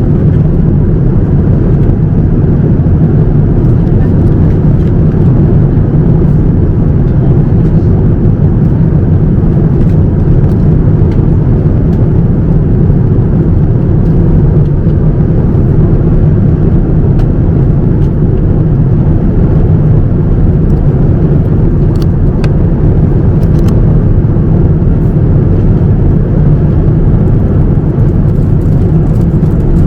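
Steady low rumble of engine and airflow noise inside the economy cabin of a Boeing 787-9 airliner, unchanging throughout.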